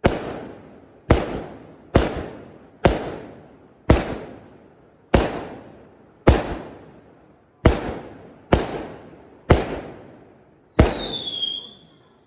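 Fireworks going off: about eleven sharp, loud bangs roughly a second apart, each echoing away before the next. Near the end one bang is followed by a short, slightly falling whistle.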